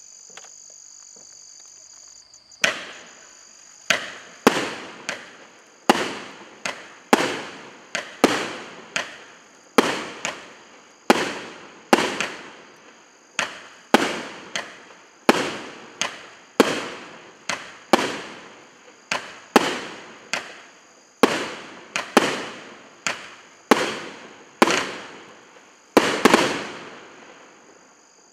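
A 19-shot 1.2-inch firework cake firing: a string of sharp bangs, roughly one a second, each fading out quickly. It starts about three seconds in and ends a couple of seconds before the close, with crickets chirring faintly before and after.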